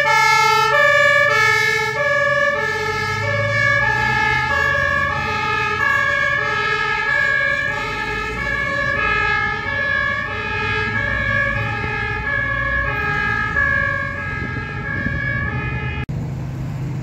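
German fire engine's two-tone siren (Martinshorn) sounding its alternating high-low pattern in a steady rhythm, over the rumble of the truck's engine and traffic. The siren cuts off abruptly about a second before the end, leaving the engine and traffic noise.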